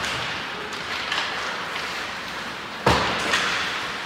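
Ice hockey skates scraping on the ice under a steady hiss, with a few light stick-and-puck clicks and one loud, sudden thud against the rink boards about three seconds in.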